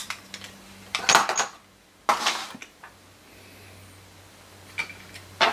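Metal clicks and rattles from a brass clock movement being handled: a sharp click at the start, two short rattles about one and two seconds in, and a few light clicks near the end.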